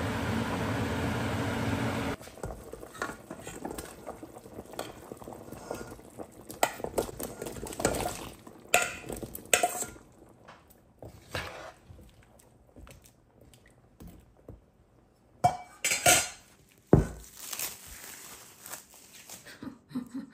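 A steady machine whirr stops about two seconds in. Then come scattered clinks and knocks of dishes, pots and utensils being handled, the loudest of them in the second half.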